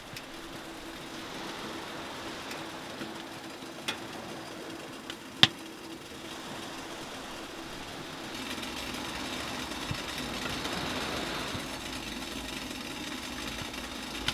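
Firewood burning in a small wood stove, giving off a few sharp pops, the loudest about five seconds in, over a steady hiss and a faint low hum.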